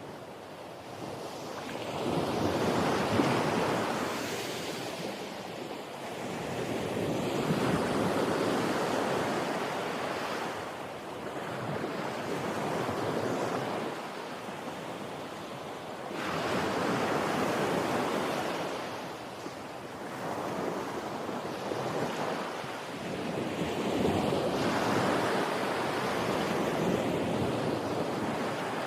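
Ocean waves breaking and washing on a shore, a steady hiss that swells and falls back about six times, every four to five seconds.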